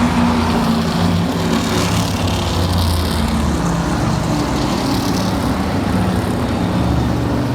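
Racing cars' engines running together on an oval track, a loud, steady drone with small shifts in pitch.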